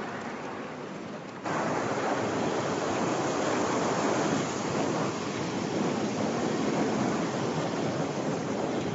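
Steady rushing of a river in a gorge, mixed with wind. It gets clearly louder about a second and a half in.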